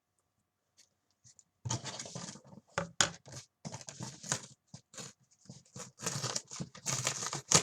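Packing tape being peeled and ripped off a cardboard shipping box: irregular rasping tears in quick bursts, starting after a moment of quiet.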